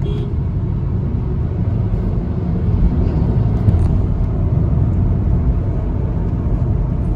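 Steady low rumble of road and engine noise inside a Honda City sedan's cabin as the car picks up speed on a highway.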